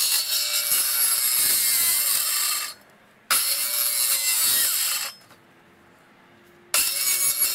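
Cordless circular saw cutting a white plastic wall-sleeve pipe to length in three short runs. The blade stops briefly between runs, for about half a second and then nearly two seconds.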